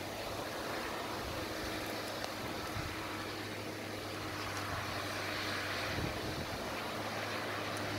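Tractor pulling a Pronar N161/3 muckspreader, its engine running with a steady hum that grows slowly louder as it approaches.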